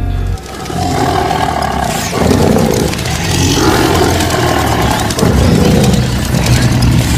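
Loud roaring sound effects under an animated logo intro, coming in about three surges.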